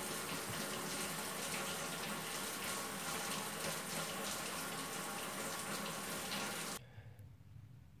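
Kitchen faucet running steadily into a stainless steel sink, the stream splashing over a knife blade held under it. The water sound cuts off suddenly near the end.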